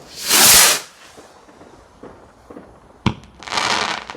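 Fireworks going off: a loud rushing hiss a fraction of a second in, then a sharp bang about three seconds in, followed at once by a second rushing hiss.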